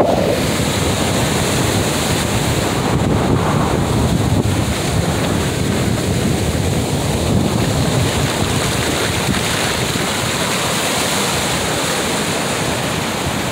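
Ocean surf breaking and washing up the sand in a steady, continuous rush, with wind buffeting the microphone.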